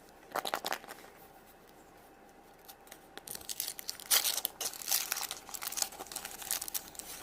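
Wrapper of a surprise egg being crinkled and torn open by hand. A short burst of crackling comes about half a second in, then irregular tearing and crinkling from about three seconds on.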